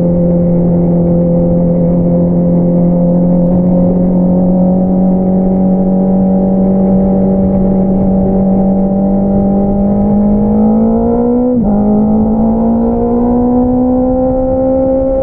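Honda CBR650R's inline-four engine through an Akrapovič single-outlet exhaust, pulling under steady acceleration with its pitch slowly rising. About eleven and a half seconds in there is a quick upshift, and the engine note drops and then climbs again.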